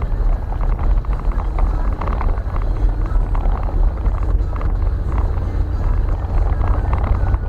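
Engine of a small vehicle running steadily as it drives along a trail, a continuous low rumble.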